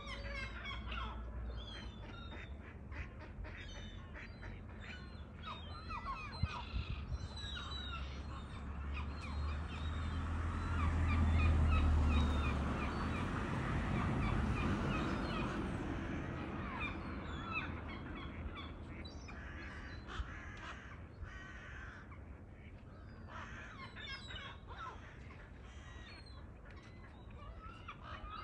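A flock of ducks and gulls calling continually with short honks and quacks. In the middle a low rumble swells, becomes the loudest sound, and fades.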